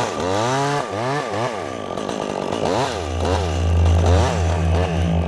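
Two-stroke chainsaw revving up and down several times, then holding a steady speed for the last couple of seconds, as it makes the back cut through a tree branch.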